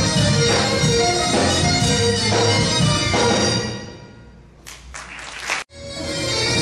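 Breton folk dance music led by bagpipes with a steady drone. It fades away a little past halfway, a second of noise follows, then the music cuts back in abruptly.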